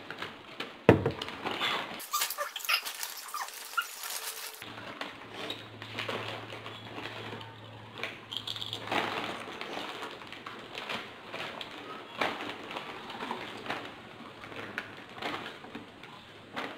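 Foil snack-chip bags crinkling and chips being crunched and chewed: a run of small crackles, rustles and clicks, with a sharp knock about a second in.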